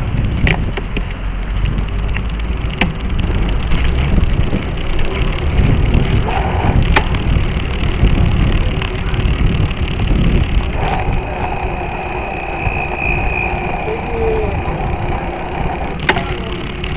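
Mountain bike rolling on a paved street, heard from a camera mounted low on its frame: a heavy steady rumble of tyres and wind, with the chain and frame giving a few sharp clicks and rattles. A faint steady whine joins about eleven seconds in.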